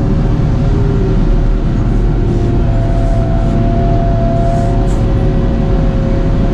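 Timber harvester's engine running steadily and loud, with steady whining tones over it; a higher whine comes in about two and a half seconds in and fades out near five seconds.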